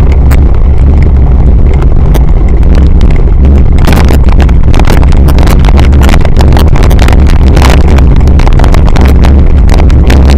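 Heavy wind rumble buffeting a bike-mounted action camera's microphone, with rattling knocks from the cyclocross bike jolting over rough dirt. The knocks come much thicker and faster from about four seconds in.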